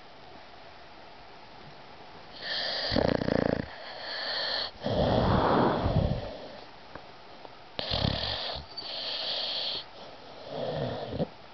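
Valley Bulldog snoring in its sleep, a run of loud snores on each breath in and out starting about two seconds in.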